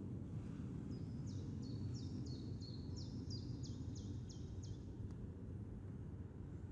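A songbird singing a run of about a dozen quick, high, downslurred notes, about three a second, that stops a little before two seconds from the end. Under it runs a steady low outdoor rumble.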